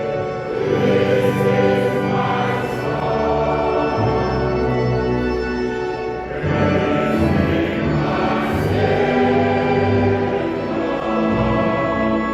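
Church choir singing in held chords, with sung words and sibilants audible.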